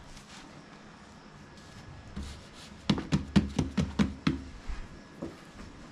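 A quick run of about eight light knocks, roughly five a second, in the middle, with fainter handling sounds around them, from hands and utensils at work during food preparation.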